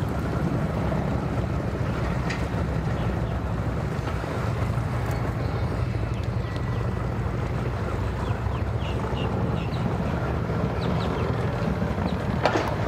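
Johnson outboard motor on a small aluminium jon boat running at low speed in gear, with wind on the microphone. There is a single sharp knock near the end.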